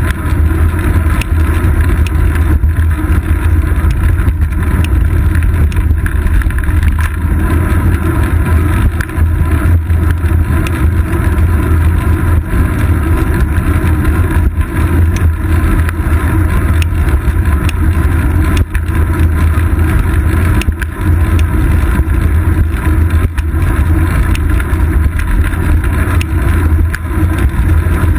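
Steady low rumble of wind and road vibration picked up by a camera mounted on a moving bicycle's seat post, with faint scattered knocks.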